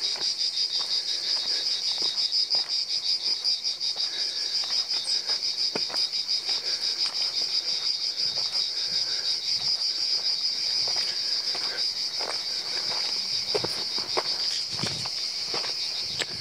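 Cicadas in the summer scrub singing a steady, high-pitched chorus with a rapid pulse. Irregular footsteps on a stony dirt path sound under it, more plainly in the last few seconds.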